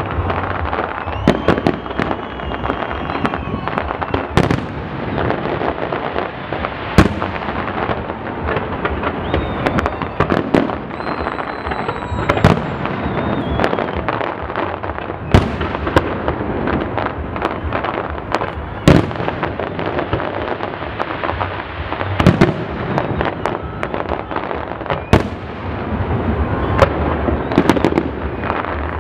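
Fireworks display: aerial shells bursting in an irregular run of sharp bangs, the heaviest every few seconds, over continuous crackling from star and spark effects, with a few thin whistles.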